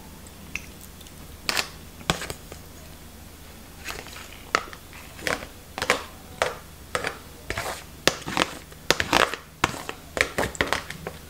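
Metal spoon scraping and knocking inside a thin plastic food tray, the tray crinkling in the hand, as oily marinated herring is scooped out onto a plate. Irregular clicks and scrapes, sparse at first and coming faster in the second half.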